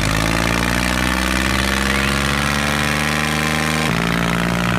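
Recorded tractor engine sound running steadily, its note changing abruptly about four seconds in.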